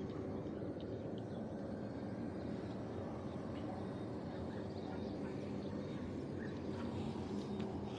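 Compact track loader running steadily while it moves and packs clay dirt, its engine a constant low hum with a steady tone.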